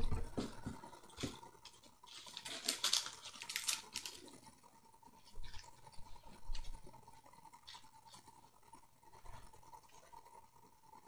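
Fishing tackle being handled and set down: crinkly rustling of plastic packaging, loudest about two to four seconds in, with scattered clicks and light knocks.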